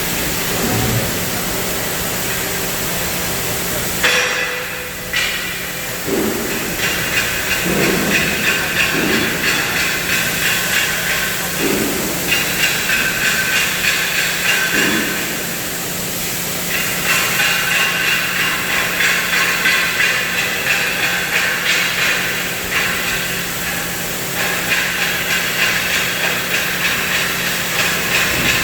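Cutting torch on a CNC gas and plasma cutting machine hissing steadily while cutting steel. The hiss comes in stretches of a few seconds with a quick rippling pulse, over a steady low hum.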